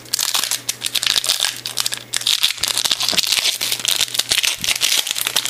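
Foil trading-card pack wrapper crinkling and crackling as hands pull it open and work the cards out.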